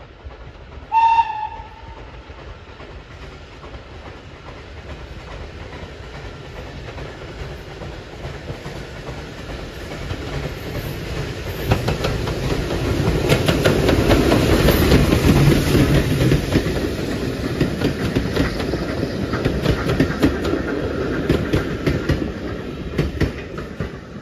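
Steam locomotive gives one short whistle toot about a second in, then approaches and passes with its coaches. The train noise and the clicking of wheels over rail joints grow louder, are loudest around the middle, and carry on as the carriages go by.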